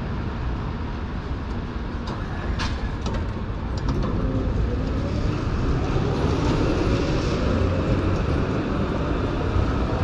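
Articulated electric tram pulling away from the stop and running past: a steady low rumble of wheels on the rails, a few sharp clicks about two to three seconds in, and a rising electric motor whine from about four seconds in as it picks up speed.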